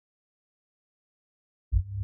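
Silence, then background music starts near the end with a low, steady synthesizer tone.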